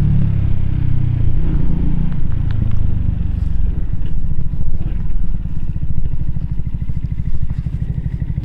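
Keeway K-Light 125 motorcycle's small V-twin engine heard from on board while riding. It is off the throttle after the opening second, its note easing down into an even low beat that grows quieter toward the end.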